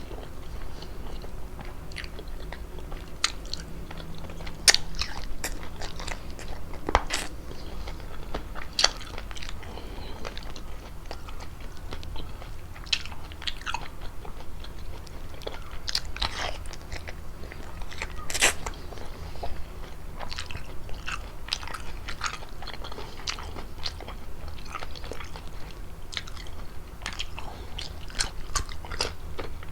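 Close-miked eating sounds of fettuccine with chicken and mushrooms: wet chewing and biting with irregular sharp smacks and clicks.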